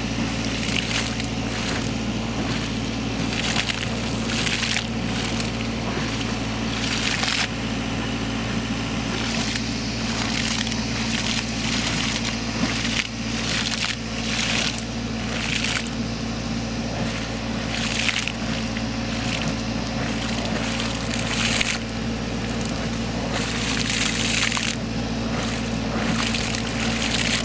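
Water and air spurting and splashing out of a borehole in irregular surges during airlift cleaning, the first flushing of the well before a pump is fitted, over a steady engine drone from the running machinery.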